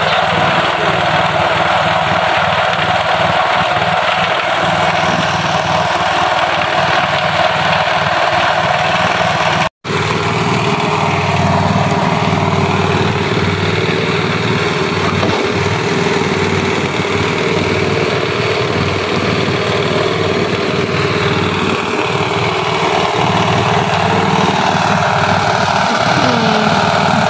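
Small engine of a portable cement mixer running steadily at a constant speed. It breaks off for an instant about ten seconds in.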